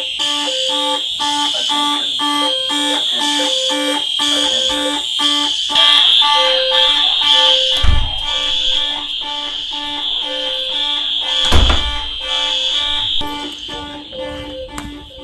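Many fire alarm horns and speaker-strobes of a fire alarm system sounding together, their pulsing tones overlapping in several repeating patterns over a steady high horn tone. Two heavy thumps come about eight and twelve seconds in. The sound grows quieter near the end.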